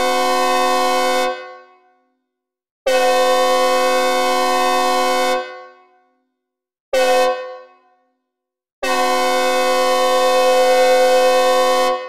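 Synthesized recreation of a Nathan Airchime locomotive horn, the rear horn of a K1L13 + K24 setup, with added reverb, playing a steady multi-note chord. It sounds the end of one long blast, then a long, a short and a long blast: the long-long-short-long grade-crossing signal. Each blast cuts off sharply into a short reverb tail.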